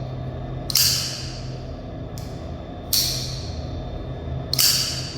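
Twosun TS-376 folding knife being flipped, its blade snapping into place with a sharp click that rings in the echo of a tiled public restroom. Three clicks about two seconds apart.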